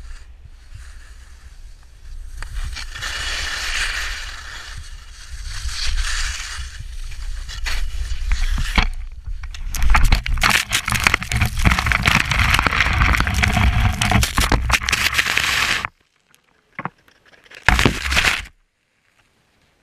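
Skis scraping and hissing over packed snow, with steady low wind noise on the microphone, building in level. About ten seconds in comes a fall: a dense run of crunching, scraping snow and knocks as the skier and the camera pole tumble, which cuts off suddenly, followed by two brief bursts of scraping.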